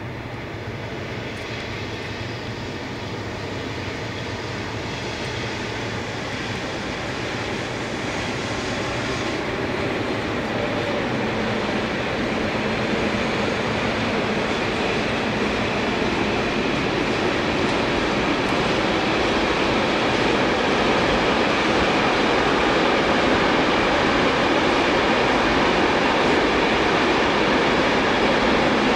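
Long freight train of intermodal wagons hauled by an electric locomotive rolling past, a steady rumble of wheels on rail that grows louder throughout as it nears.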